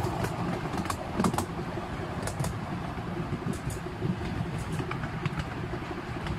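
Miniature steam train running, heard from a passenger carriage: a steady low rumble of the wheels on the track, with irregular sharp clicks.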